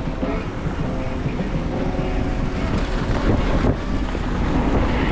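Wind buffeting the microphone of someone travelling through a snowstorm: a heavy, steady low rumble with a hiss above it.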